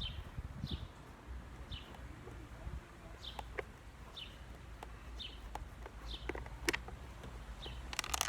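A small bird chirping repeatedly, short falling notes about once a second, over a low steady hum. A few sharp metallic clicks from a screwdriver working at small screws, with a quick cluster of them near the end.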